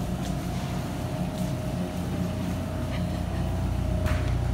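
Steady low rumble and hum of a supermarket's refrigerated display cases and ventilation, with a few faint clicks.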